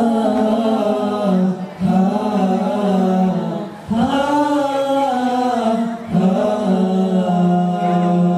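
Male a cappella nasyid group singing long held chords in unison phrases, with brief breaks between phrases about two, four and six seconds in.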